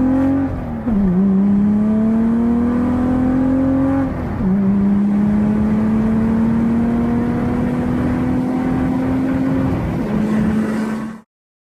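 Citroen C1 engine heard from inside the cabin under hard acceleration, its pitch climbing steadily through each gear. There are three quick drops in pitch for gear changes: about half a second in, about four seconds in and near ten seconds. The sound cuts off abruptly about eleven seconds in.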